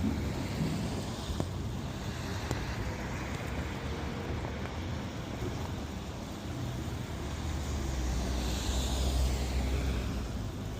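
Street traffic noise with wind: a steady rumble and hiss of passing vehicles, swelling louder as a vehicle passes about eight seconds in.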